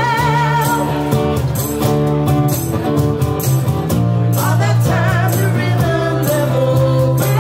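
Live acoustic music: an acoustic guitar strummed in a steady rhythm under a strong low bass note, with a singer holding long notes with vibrato.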